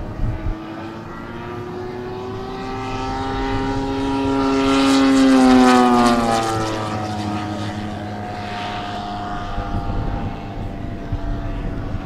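Propeller-driven RC scale model of a Morane-Saulnier D-3801 flying past: a steady propeller tone that grows louder toward the middle, drops in pitch as the plane passes, then fades away.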